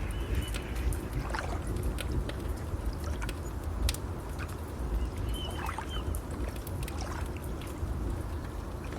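Nature ambience of a crackling fire with many sharp pops, over a steady low wash of waves. A bird chirps briefly twice, near the start and again about halfway through.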